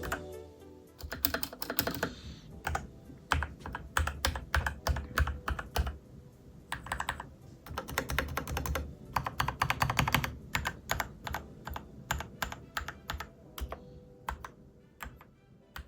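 Typing on a mechanical keyboard: fast runs of clacking keystrokes with short pauses between bursts, slowing to scattered keypresses near the end.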